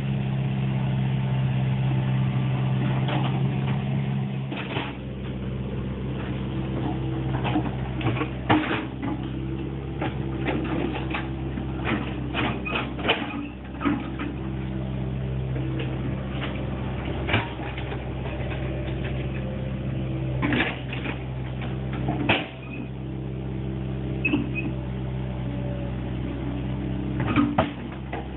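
Excavator diesel engine running steadily, its note dropping about four and a half seconds in, with frequent short clanks and knocks as the machine works.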